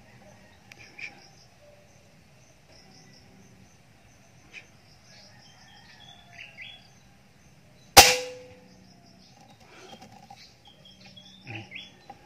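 A single air rifle shot about eight seconds in: a sharp crack with a short ringing tail. Small birds chirp faintly in the background.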